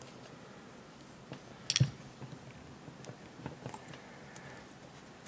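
Hand tools clicking and clinking against a small metal clamp band on a scooter carburetor's rubber boot, with a louder cluster of clicks about two seconds in and a few lighter ones later.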